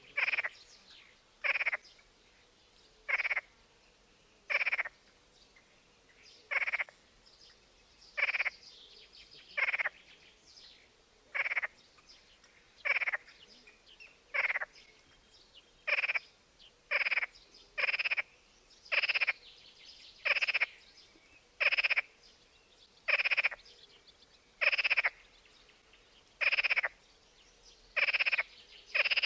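Short animal calls from one repeated source, each about a third of a second long, coming about every one and a half seconds and then about once a second in the second half, over a very quiet background.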